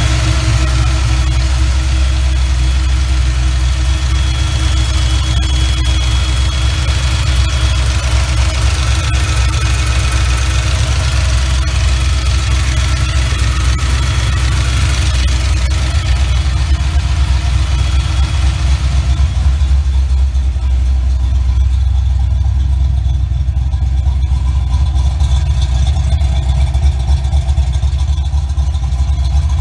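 Fox Body Mustang's 302 cu in (5.0 L) small-block Ford V8 idling steadily. A higher hiss over the engine drops away about two-thirds of the way through.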